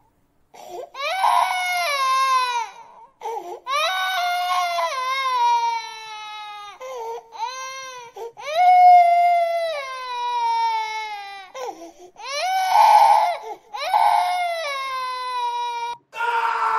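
A young child crying hard: a string of long, high wails, each sliding down in pitch, with short catches of breath between them.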